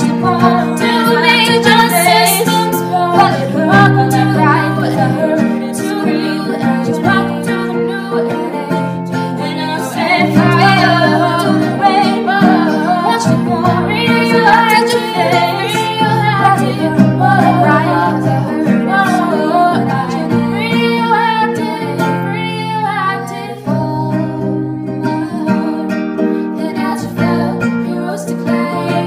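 A female voice singing a pop song over a strummed acoustic guitar, the chords held steady under the shifting melody.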